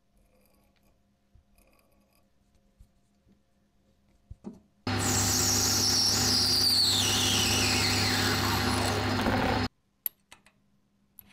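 Power tool running for about five seconds, switching on about halfway through and cutting off abruptly, with a steady low hum and a high whine that falls in pitch.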